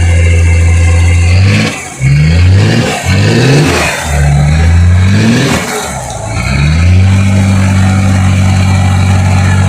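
Off-road 4x4 engine running steadily, then revved in five or so quick rising bursts over about five seconds, then held at a steady higher pitch.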